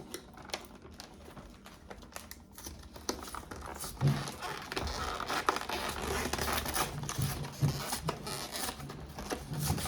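Packaging crinkling and tearing as a trading-card collection box is unwrapped and opened by hand, with scattered rustles and clicks that grow busier about halfway through.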